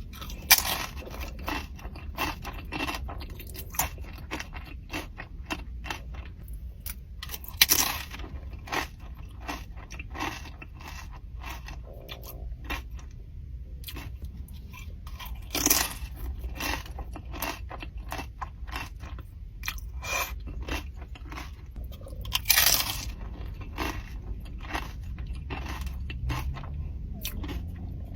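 Close-miked eating: steady chewing and crunching of food, with louder crunchy bites about 8, 16 and 23 seconds in.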